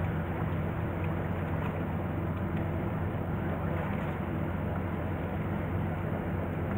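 Steady low engine drone of a departing Tarumizu car ferry, even and unchanging throughout.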